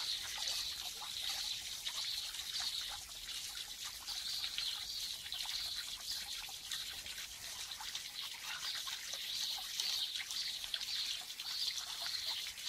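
Water trickling steadily into a garden pond, a continuous hiss that swells and fades a little.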